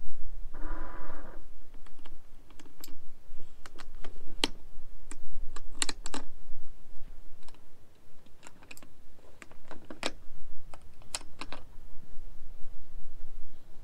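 A string of sharp, irregular clicks and knocks from hands working a hard-shell rooftop tent and an aluminium ute canopy, with a low steady rumble of wind on the microphone underneath. A short pitched, creak-like sound comes about a second in.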